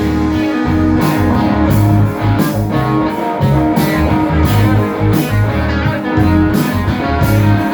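Live band playing an instrumental stretch of a blues-rock song: guitar over bass and drum kit, with a steady beat.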